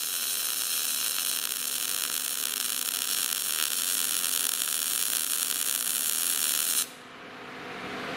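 Gas-shielded MIG welder arc in short-circuit transfer, a steady sizzling buzz that stops abruptly about seven seconds in as the arc is broken. The wire speed is set back to the setting matched to the voltage, after a run where it was too fast.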